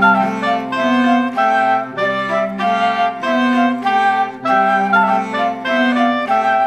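Background music: a bright melody of woodwind-like notes over a steady bass line, played by synthesised instruments.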